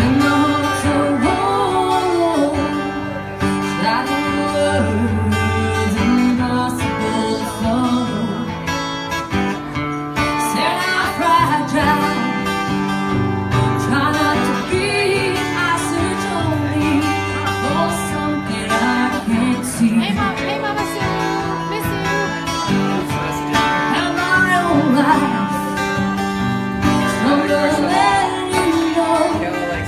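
A woman singing live into a microphone while playing guitar, the voice carrying a melody over steady guitar chords.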